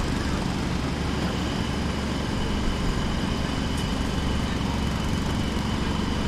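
Jackhammer hammering in the distance: a steady, unbroken rattle, heaviest in the low end.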